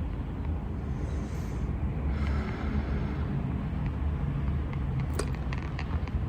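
A person hiccuping: one sharp hiccup about five seconds in, over a steady low background rumble.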